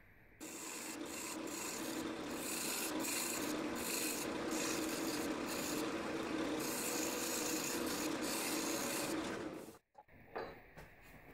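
Turning tool cutting grooves into the face of an oak blank spinning on a wood lathe: a steady scraping hiss of the tool on the wood over the lathe's running hum. It cuts off abruptly near the end.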